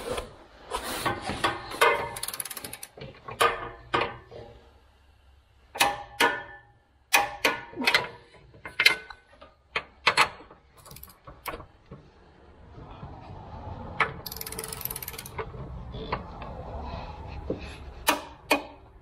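Hand socket ratchet clicking in short runs of strokes as nuts are run onto the rear suspension brace bolts, with a brief hiss about two-thirds of the way in.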